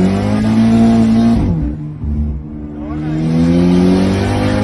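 Car engine accelerating hard, its pitch climbing, falling away at a gear change about a second and a half in, then climbing again through the second half.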